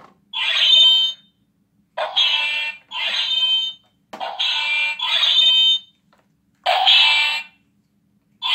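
Electronic sound effect from a light-up toy's sound chip, played in short bursts of just under a second, six times, with brief gaps between them: a high electronic tone.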